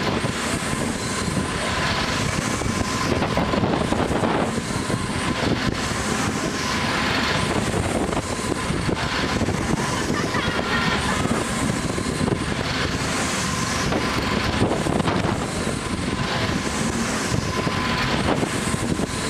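Wind rushing over the microphone and the running noise of a spinning Technical Park Apollo 2000 Egg Dance ride, swelling and fading about every two seconds as the gondola swings round, with a faint steady whine underneath.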